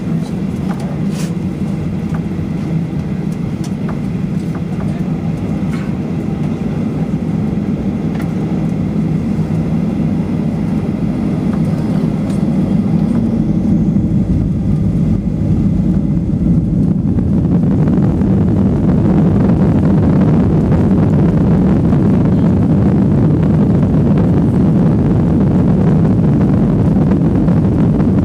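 Cabin noise of a Boeing 737-800 taxiing: a steady low rumble and hum from its CFM56-7B jet engines and rolling gear, growing gradually louder over the second half.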